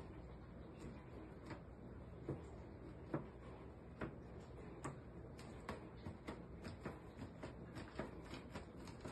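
A rubber balloon dabbed again and again onto wet paint on a wooden board, each press and lift making a soft tap or sticky click, at first a little under one a second and then quicker and less even, over a faint steady room hum.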